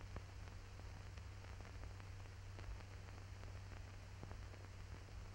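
Faint hiss and steady low hum of an old archival soundtrack, sprinkled with small random clicks and crackles; no aircraft or other distinct sound.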